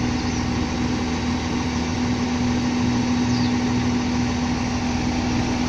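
Diesel railcar idling at the platform with its doors shut: a steady engine hum with a strong low tone. Small birds chirp faintly a few times over it.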